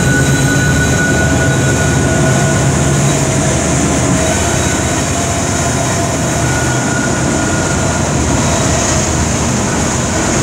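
Heavy coal train passing close by: the trailing diesel locomotive goes by, then loaded coal cars roll past with a steady loud rumble of steel wheels on rail. Thin wheel-squeal tones come and go over the rumble.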